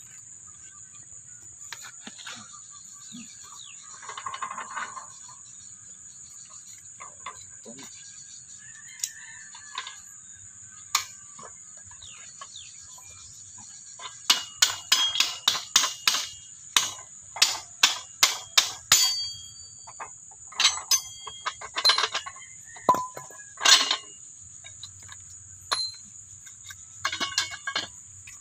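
Crickets shrill steadily. About halfway through comes a run of sharp metal clanks with a ringing tone, roughly two a second for about ten seconds, and a few more near the end. The clanks come from the steel rod and pipe of a deep-well hand pump being worked loose to pull out its valve.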